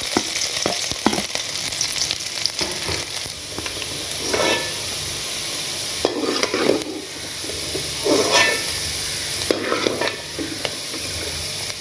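Chopped pirandai (adamant creeper) stems sizzling as they fry in hot oil in a pan. A spatula scrapes and stirs through them about every two seconds, with a few light clicks in the first second.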